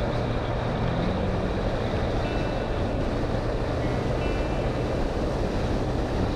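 Honda CBR1100XX Blackbird's inline-four engine running steadily at speed, mixed with heavy wind rush on the onboard microphone.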